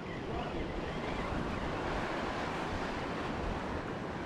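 Ocean surf washing against shoreline rocks, a steady rush of water, with wind buffeting the microphone.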